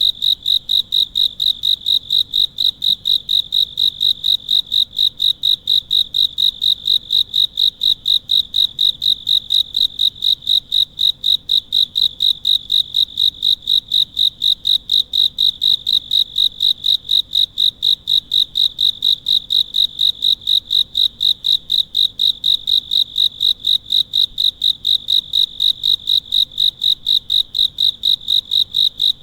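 A singing insect at night chirping steadily in a high-pitched, evenly pulsed rhythm of about four chirps a second.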